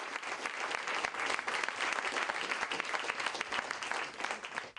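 Audience applauding: many people clapping hands in a dense, even patter that dies away near the end.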